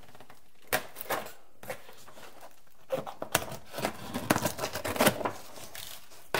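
Packing tape on a cardboard box being cut and torn open, with a few sharp clicks at first, then a rapid run of tearing and crinkling from about three seconds in.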